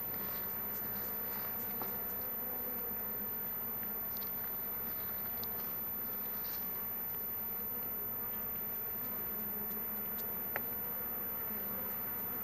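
Honey bees buzzing in a steady hum around an opened hive while honey frames are being taken out, with a brief click about ten and a half seconds in.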